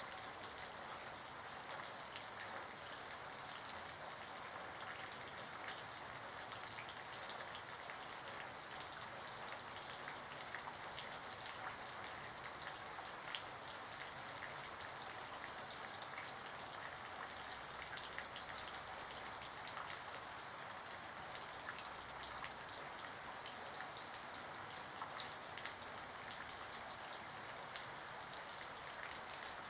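Rain falling steadily, with individual raindrops ticking sharply and irregularly close by.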